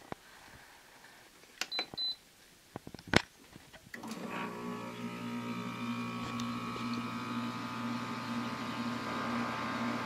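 8000 BTU LG window air conditioner being started: its control panel beeps twice about two seconds in, a relay clicks loudly a second later, and at about four seconds the unit starts, its LG compressor and fan settling into a steady hum with airflow noise.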